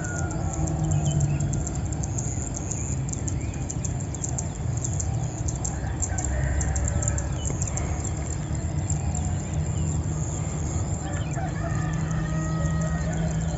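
A rooster crowing, with longer calls about halfway through and again near the end, over the chirping of small birds and a steady low rumble.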